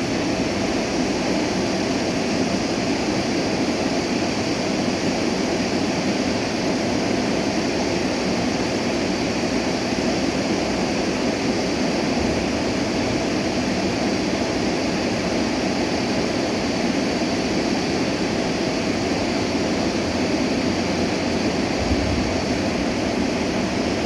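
Stream water rushing and flowing steadily, an even, unbroken sound.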